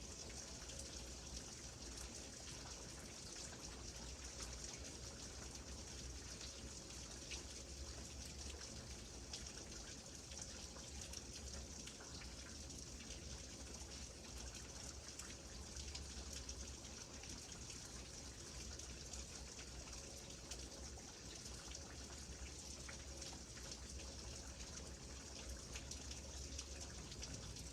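Steady rainfall, many fine drops pattering with a trickle of running water, even and unbroken.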